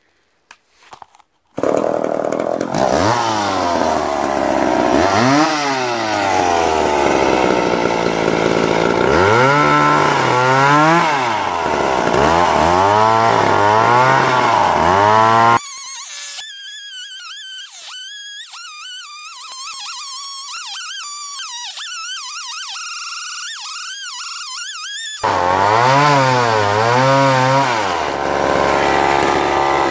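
McCulloch Pro Mac 10-10 two-stroke chainsaw in a homemade chainsaw mill, ripping a plank lengthwise from a log. It comes in loud about a second and a half in, and its pitch keeps rising and falling as it revs and labours in the cut. For some ten seconds past the middle the deep engine note drops out, leaving a thinner, higher wavering whine, before the full saw sound returns.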